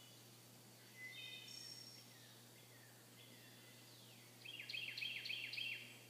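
Wild songbirds singing. A short song of quick high notes comes about a second in, then fainter sliding calls. Near the end comes the loudest, a fast run of down-slurred notes lasting just over a second.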